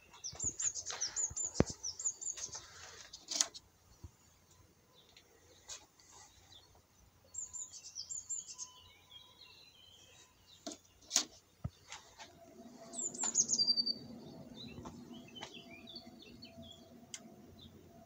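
A small songbird singing short runs of high, quick chirps several times, with sharp clicks scattered between them. About two-thirds of the way in, a low steady hum sets in.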